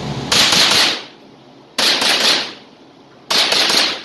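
Three shots from a Thompson/Center TCR22 semi-automatic .22 LR rifle, about a second and a half apart, each with a short echo off the walls of an indoor range.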